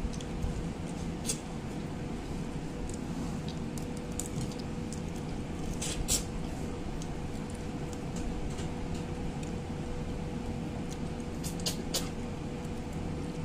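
Eating with the hands: a few short, sharp clicks and smacks, about a second in, around six seconds and near the end, over a steady low background rumble with a faint steady hum.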